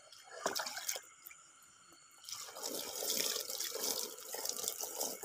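Water poured from a plastic scoop splashing over a large snakehead fish as it is rinsed by hand, with a few wet clicks and slaps before the pouring gets going about two seconds in.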